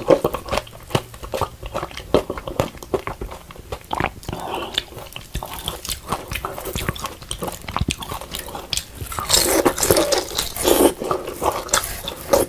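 Close-miked eating of crispy grilled daechang (beef large intestine): many sharp crunches from the browned skin and wet chewing, growing denser and louder about nine seconds in with a fresh bite.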